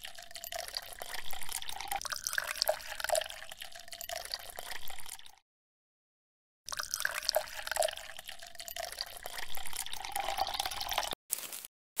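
Water pouring and dribbling from a small plastic toy bucket onto sand, a trickle with many small drips. It cuts off suddenly about five seconds in and starts again a second and a half later, then breaks into short separate bits near the end.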